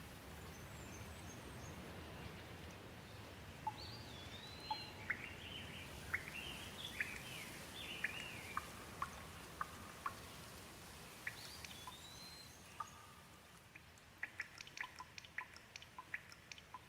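Gentle rain falling as a soft, steady hiss. A bird chirps over it in short rising and falling calls through the first half and again about two-thirds of the way in, and near the end a quick scatter of water drips patters close by.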